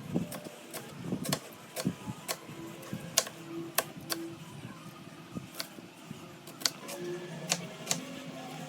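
Knife cutting through raw pork and knocking on a cutting board: about a dozen sharp, uneven knocks, roughly one every half second to second.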